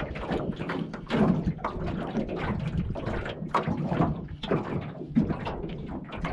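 Choppy water slapping against a small aluminium boat's hull, with an irregular run of knocks and rattles.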